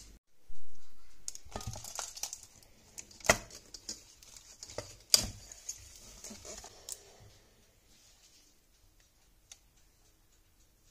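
Baking paper crinkling, with a few sharp clicks and knocks from a metal springform cake pan being handled. The two loudest clicks are about two seconds apart, and the handling dies away about two-thirds of the way through.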